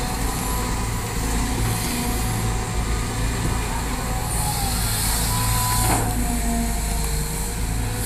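Caterpillar 320 hydraulic excavator's diesel engine running steadily under load as it dumps soil into a dump truck and swings back to dig. About halfway through comes a hiss lasting over a second, ending in a short knock.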